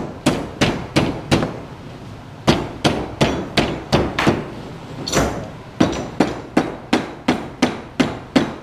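Aluminum tube being knocked along a lubricated mandrel rod by hand: a run of sharp, slightly ringing knocks, about three a second, with a short pause about two seconds in. The tube is a tight fit and goes onto the mandrel very hard.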